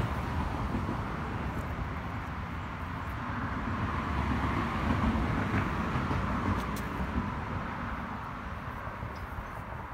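Steady outdoor background rumble and hiss, swelling about halfway through and easing off near the end.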